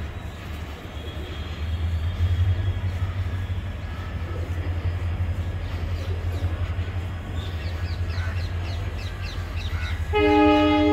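Palace on Wheels passenger coaches rolling slowly past with a steady low rumble as the train departs. Near the end a loud, steady horn starts sounding.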